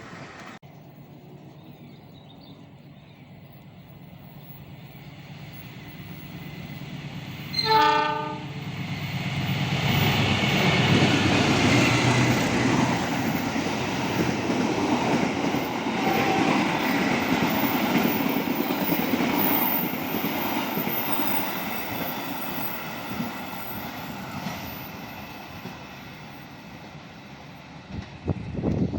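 A train sounds one short horn blast, the S35 (Semboyan 35) warning signal, then passes close by at speed. The running noise swells, holds for about ten seconds and fades away.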